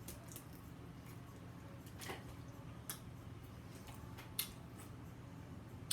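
A few faint, isolated clicks and ticks over a low steady hum.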